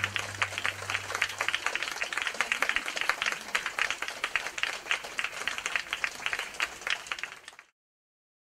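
Audience applauding, with the last low notes of the music dying away in the first second or so. The applause cuts off abruptly about seven and a half seconds in.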